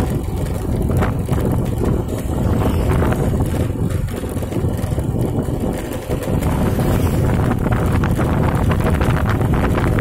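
Wind rumbling on the microphone with a vehicle's engine and road noise underneath, as from a camera carried on a moving vehicle; the rumble dips briefly about six seconds in.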